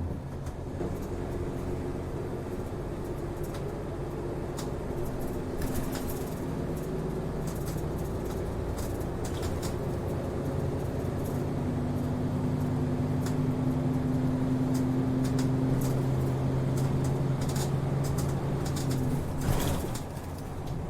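Route bus interior running sound: the diesel engine drones steadily under way, its tone holding steadier and a little louder from about halfway through. Scattered light clicks and rattles from the cabin sound throughout, with a brief louder rattle near the end.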